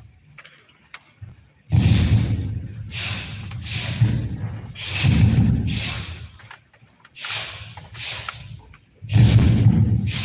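A taekwondo team performing a synchronized form, making about a dozen loud, sudden bursts of sound in uneven groups; each cuts in sharply and fades within half a second. The bursts begin nearly two seconds in.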